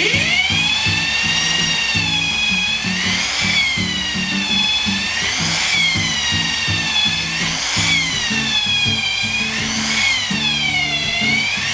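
Hand-held electric drill boring a bolt hole through a plywood gusset and timber boat frame, its motor whine sagging in pitch and recovering about every two seconds as the bit bogs down under load. The builder finds his cheap sale-bought bits are not very sharp. Background music with a steady beat plays underneath.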